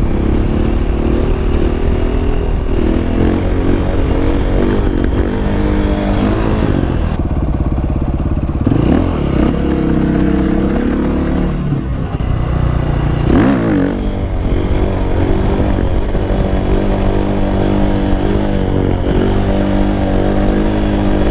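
KTM 530 EXC's single-cylinder four-stroke engine running under throttle on the move, its pitch shifting steadily with throttle and gears. The revs swing sharply down and up twice, about nine and thirteen seconds in.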